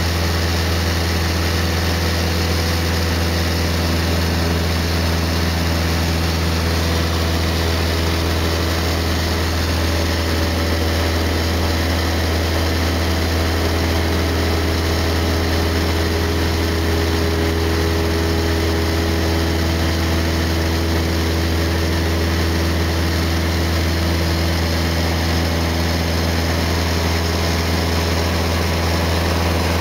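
Cessna 152's four-cylinder Lycoming O-235 engine and propeller in flight, a steady low drone with an even hiss as heard inside the cabin.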